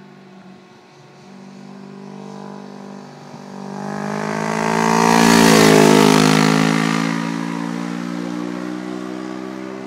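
Kawasaki Ninja 650R's parallel-twin engine coming on under power. It grows steadily louder, passes close about five to six seconds in with a drop in pitch, then fades as it heads away.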